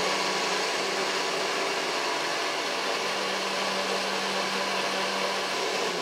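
Countertop blender running steadily, puréeing chickpeas into a sauce: a loud, even whir with a constant hum beneath it.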